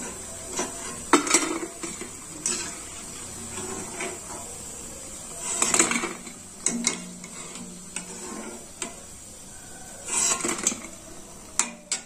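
Perforated metal skimmer (jhara) clinking and scraping against the kadhai as fried pakoras are scooped out of hot oil, in scattered clatters, some in quick clusters. Under it the frying oil sizzles steadily and more quietly.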